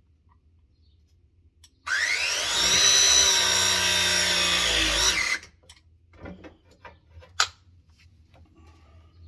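Milwaukee ProPress tool with MegaPress jaws running a press cycle on a gas fitting. About two seconds in, its motor starts with a whine that rises in pitch, runs steadily for about three seconds, then cuts off as the crimp completes. A few light clicks follow.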